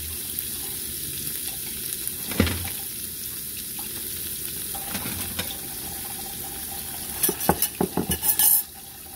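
Slices of ranch cheese frying in oil in a nonstick skillet with a steady sizzle. A sharp knock comes about two seconds in, and near the end there is a quick run of loud clattering clicks from kitchen utensils being handled.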